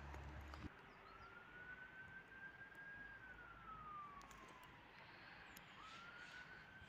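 Faint, distant siren wailing: one tone rises slowly, holds, and falls away about four seconds in, then rises again near the end.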